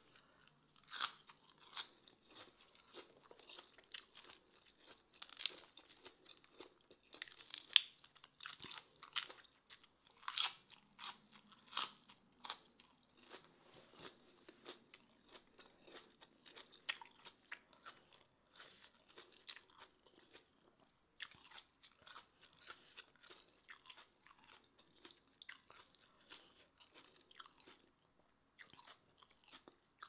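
Close-up chewing and crisp crunching of raw green vegetable stalks and seafood papaya salad, a quick run of sharp crunches, loudest and densest in the first half, easing to softer chewing later.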